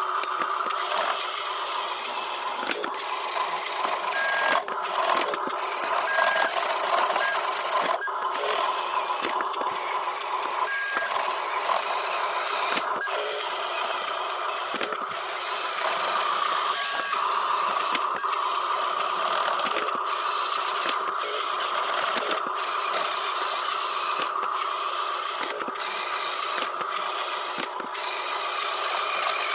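Small electric motors and gearboxes of radio-controlled construction models whirring steadily, with a few short high beeps early on and near the middle.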